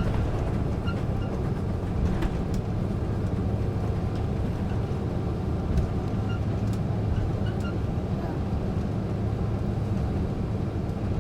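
Steady low rumble in the cabin of an airliner rolling on the ground just after landing, with a few faint clicks and ticks.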